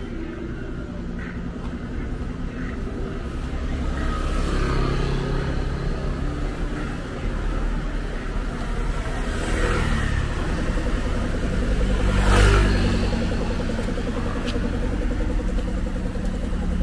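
Cars driving past close by on a street, engines and tyres swelling and fading as they pass, with the loudest pass about twelve seconds in.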